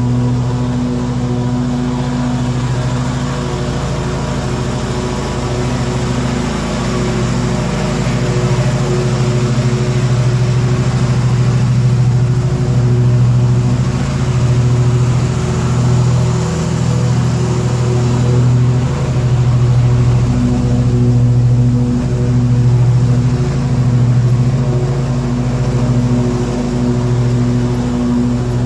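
Terramite T-2 backhoe's engine running at a steady speed, its level swelling and easing slightly every second or two.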